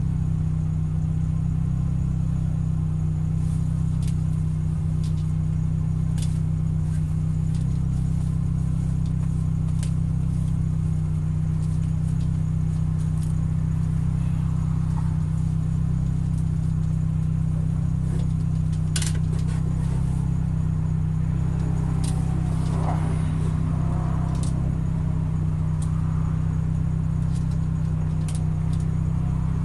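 Car engine idling steadily while the car is stopped, heard from inside the cabin, with a few small clicks and faint voices toward the end.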